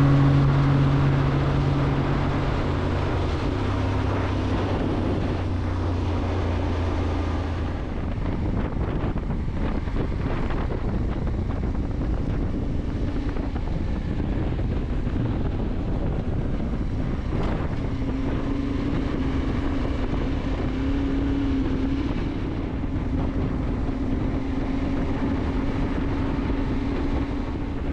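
Adventure motorcycle engine running on the move, with steady wind buffeting the microphone. The engine note steps down about four seconds in, and a different steady engine tone comes back in the second half.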